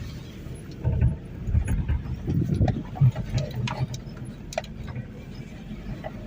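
A vehicle engine running with an uneven low rumble that swells and fades, with a few faint clicks.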